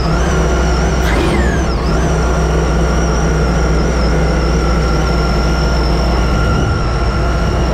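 Sea-Doo RXP-X's supercharged Rotax 1630 ACE three-cylinder engine running out of the water with a steady low drone and a steady high whine, with one quick rev up and back down about a second in. It is running with the intercooler-to-throttle-body hose off, in a test that shows the intercooler is leaking water.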